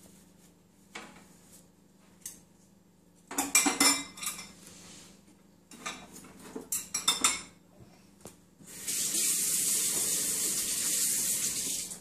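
Dishes and cutlery being washed by hand in a stainless steel sink: a few light clinks, then two bursts of clattering a couple of seconds apart. About three quarters of the way in, the kitchen tap runs with a steady rush of water, which stops near the end.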